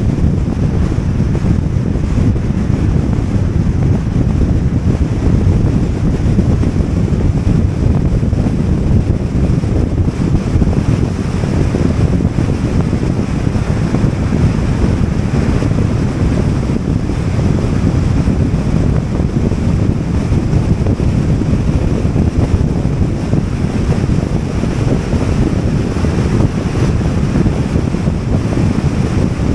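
Steady, loud rumble of wind buffeting the microphone, mixed with road noise, from a car driving at highway speed.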